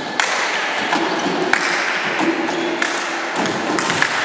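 Indoor volleyball rally in a sports hall: a few sharp smacks of the ball against the players' short calls and the hall's busy background noise.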